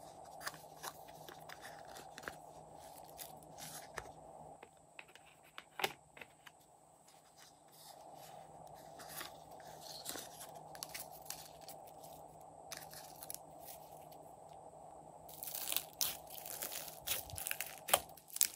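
Small plastic containers being handled and opened: scattered sharp clicks and taps of the lid and shell, with crackly bits as the contents are tipped out. A denser, louder run of clicks and taps comes near the end. A faint steady hum runs underneath.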